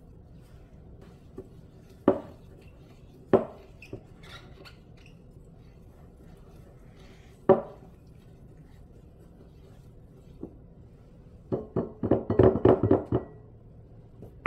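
Plastic spatula knocking against a glass mixing bowl while stirring a dry, crumbly mixture. There are a few separate sharp knocks, then a quick run of about ten clatters near the end, which is the loudest part.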